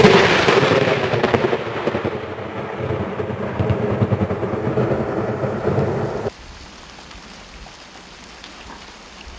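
Thunder from a close lightning strike: a loud crackling rumble that fades over about six seconds and then cuts off suddenly, leaving a steady hiss of rain.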